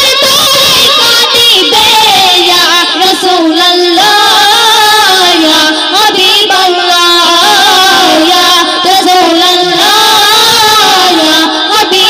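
Two female singers singing a Bengali Islamic gazal into handheld microphones, loud, amplified and continuous, with long held and gliding notes.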